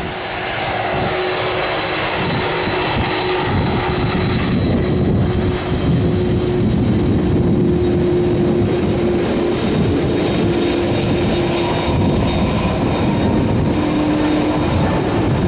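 An airliner's engines running loud and steady as it passes close: a rushing noise with a held whine that slowly drops in pitch near the end.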